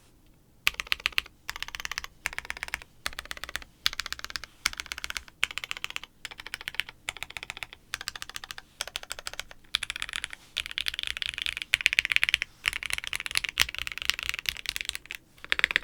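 Fast typing on a plateless, stacked-acrylic tenkeyless mechanical keyboard with retooled Cherry MX Black linear switches and GMK keycaps, in bursts of rapid keystrokes broken by short pauses. The flex cuts are taped and a little cotton sits in the case, which gives a fuller, plate-like sound with less reverb.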